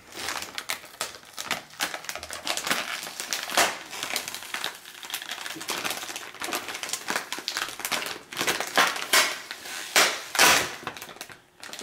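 Clear plastic bag of candy-coated popcorn crinkling and rustling as it is pulled from an Easter basket and handled: a dense run of crackles, with louder crunches near the end.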